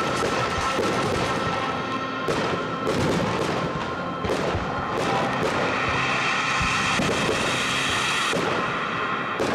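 Fireworks shells bursting in a series of sharp bangs over steady music.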